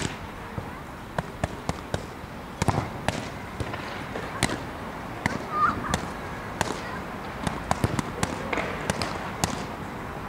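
Boxing gloves smacking focus mitts in pad work: sharp slaps in quick, irregular combinations throughout.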